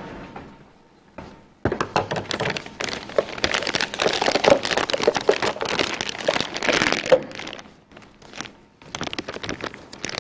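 Thin plastic bag of brownie batter, used as a piping bag, crinkling and crackling as it is handled, in dense irregular crackles starting about a second and a half in, with a short pause near the end.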